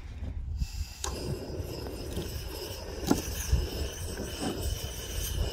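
Knife cutting through a small fish on a wooden cutting board, with a couple of sharp knocks of the blade on the board. Wind rumbles on the microphone underneath.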